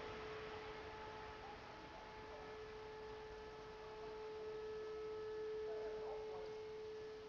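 Distant E57 motor sirens holding one faint, steady wailing tone over background hiss, part of the fire-alarm signal.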